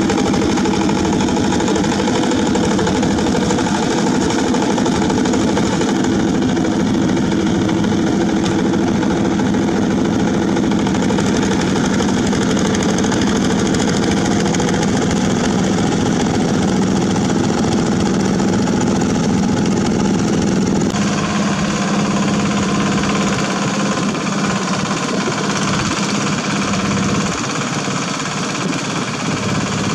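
Yanmar walking tractor's single-cylinder diesel engine running steadily under load while tilling wet paddy mud. The engine note changes abruptly about two-thirds of the way through, and again near the end.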